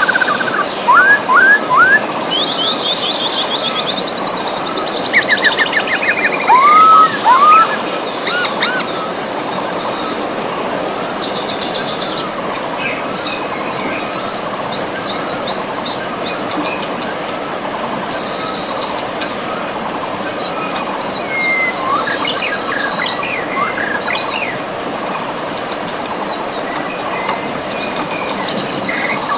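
River water rushing steadily, with several birds singing over it: quick upward-sweeping whistles and rapid trills, thickest in the first several seconds, then scattered chirps.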